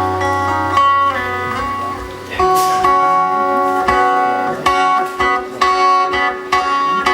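Instrumental music led by guitar: plucked notes ring out over sustained chords, and a few notes bend in pitch about a second in.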